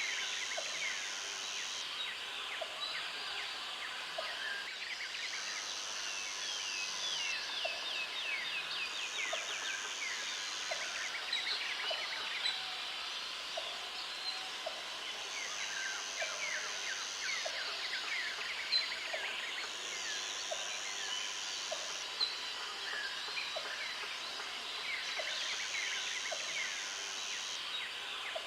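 Wild animal chorus: many overlapping chirping calls throughout, with a high, even buzz coming in every few seconds for about two seconds at a time, and faint regular ticks.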